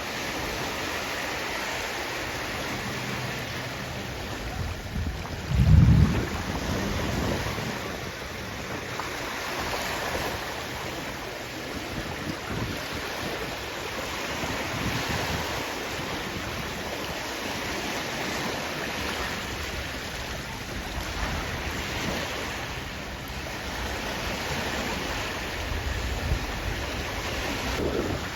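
Sea waves washing onto the shore, a steady hiss that swells and eases every few seconds, with wind on the microphone. About six seconds in there is a brief loud low buffet, and a smaller one near the end.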